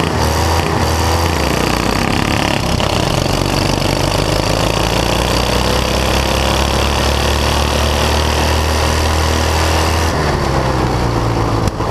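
Lawn tractor engine running loud and close, its pitch climbing slowly, then dropping about ten seconds in.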